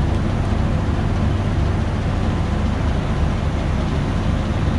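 Steady low hum and hiss inside a Komuter Sulam commuter train car as it stands at a station, about to depart.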